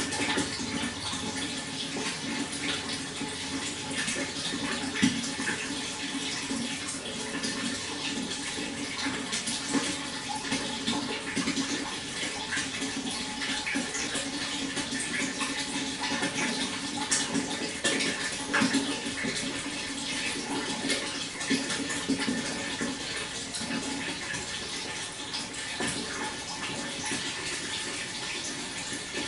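Water flowing steadily: an even rushing with many small splashes and trickles through it.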